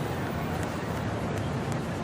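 Steady urban outdoor ambience: a constant wash of traffic noise with a few faint clicks.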